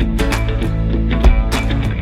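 Background music with a beat and guitar, with a deep bass hit about a second in.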